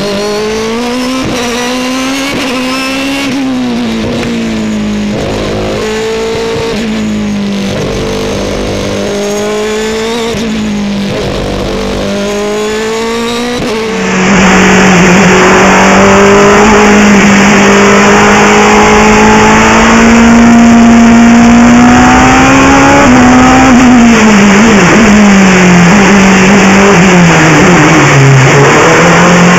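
Race car engine at full racing pace, its pitch repeatedly climbing and then dropping sharply through quick gear changes. About halfway through the sound jumps suddenly louder and harsher, then winds down and picks up again near the end.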